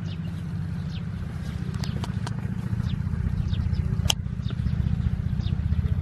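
A steady low rumble, with faint short high chirps repeating about once or twice a second and a single sharp click about four seconds in.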